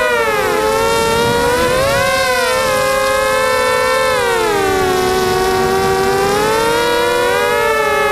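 Brushless motors and propellers of a 260-size FPV racing quadcopter whining in flight, several tones rising and falling together with the throttle. The pitch drops about a second in, swells again around two seconds, sinks lowest around five to six seconds and climbs again near the end.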